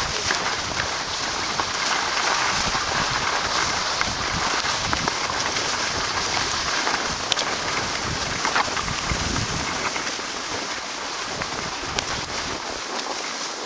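Skis sliding over snow, a steady hiss, with wind buffeting the microphone as the skier moves downhill.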